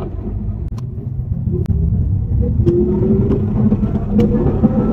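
Car accelerating on the road: low engine and road rumble, with a faint whine that rises slowly in pitch from about halfway through. This is the aeroplane-like whistle that comes only under throttle, which the mechanic suspects comes from the gearbox or a propeller/drive shaft.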